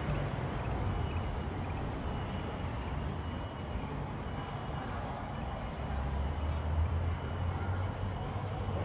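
Steady low rumble of outdoor background noise with no distinct events, a little stronger about two-thirds of the way through.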